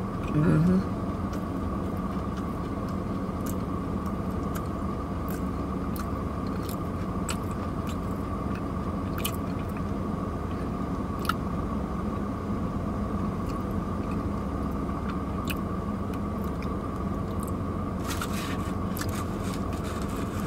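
A person chewing a breakfast biscuit sandwich close to the microphone, with small clicks of chewing and the foil wrapper over a steady low hum inside the car. A brief hummed murmur comes about half a second in, and the foil crinkles in a cluster near the end.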